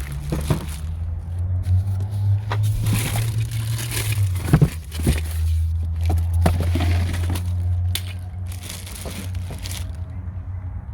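Sun Joe electric pressure washer running: a steady motor hum under a spray that swells and fades as the jet plays over a surface, with a few sharp clicks.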